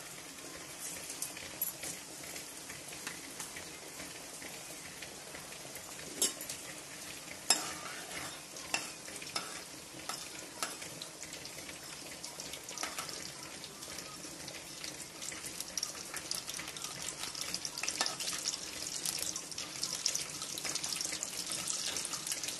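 Cumin, mustard seeds and chana dal sizzling and crackling in hot oil in a metal kadai, the tempering (tadka) stage of the curry. A metal spoon stirs and scrapes the seeds, knocking sharply against the pan a few times, and the crackle grows louder in the second half as the seeds fry.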